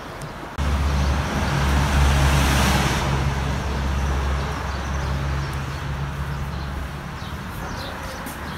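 Street traffic: a motor vehicle's engine running close by, a low rumble that starts suddenly, is loudest two to three seconds in and then slowly fades.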